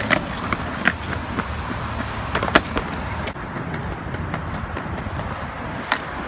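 Skateboard wheels rolling on pavement in a steady low rumble, with several sharp clicks and knocks scattered through it.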